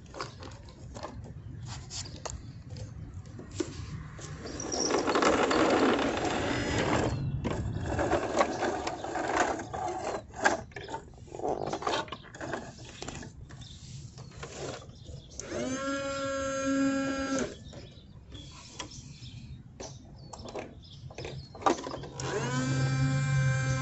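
Toy garbage trucks being worked: plastic parts and mechanisms clicking and ratcheting, with a louder stretch of rattling and scraping about five to seven seconds in. Twice a steady pitched hum sounds, briefly about two-thirds of the way through and again from near the end.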